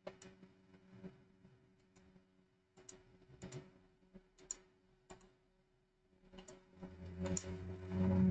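Scattered single clicks of a computer mouse and keyboard, roughly one a second. A louder low hum with hiss swells in near the end.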